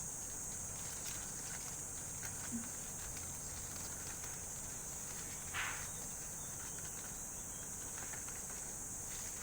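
Faint rustling of foliage being rubbed by hand far from the microphone, with one louder brief swish about five and a half seconds in, over a steady high chirring of insects. It is made as a sound effect for wind moving through leaves.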